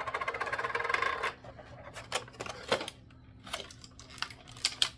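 Tape being peeled off plastic packaging: a rapid crackling screech for about the first second and a half, then scattered clicks and crinkles of the plastic being handled.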